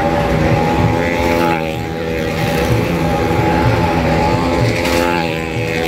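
Vehicle engine running steadily as it circles the wall of a well-of-death drum: a sustained drone whose pitch wavers only slightly.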